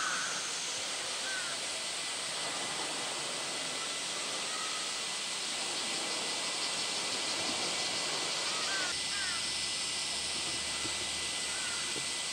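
Steady outdoor hiss of open-air ambience with a few short, faint bird chirps scattered through it.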